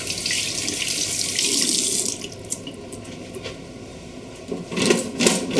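Tap water running into a sink, shut off about two seconds in, followed by a few short knocks near the end.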